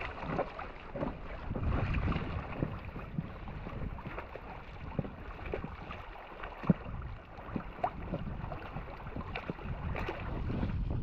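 Small waves lapping and slapping against an inflatable packraft at water level, with irregular splashes and drips and light wind on the microphone; one sharper slap comes a little past halfway.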